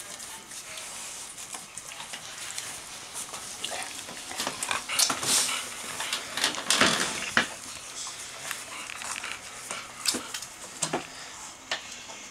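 Golden retriever puppies nursing on fleece bedding: soft suckling and rustling with scattered small clicks. The sounds grow louder in the middle, when the mother dog moves in close.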